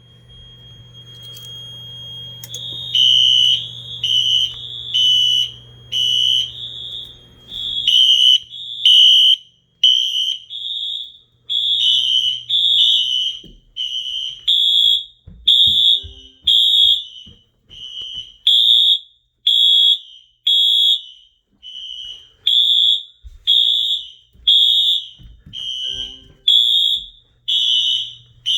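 Fire alarm horns, a Wheelock HSR and a Wheelock MT horn/strobe, sounding the temporal code-3 evacuation pattern: loud, high-pitched beeps in groups of three, the two horns at slightly different pitches and not in step. The system is in alarm from a manual pull station activation.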